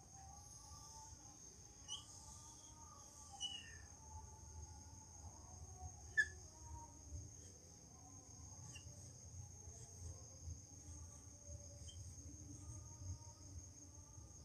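Faint squeaks and light taps of a marker drawing on a whiteboard, with one sharper tap about six seconds in, over a faint steady high-pitched tone.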